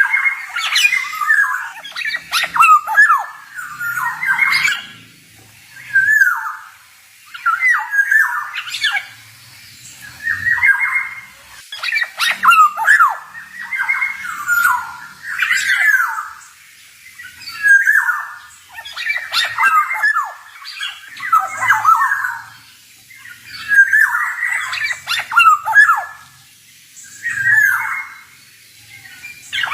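Male black-naped oriole (kepodang) singing: a string of short whistled phrases, one every one to two seconds, with short gaps between them.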